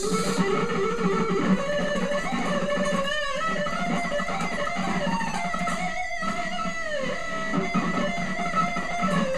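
ESP LTD electric guitar played as a fast lead run, a rapid string of intense chromatic licks, broken by two brief pauses about three and six seconds in.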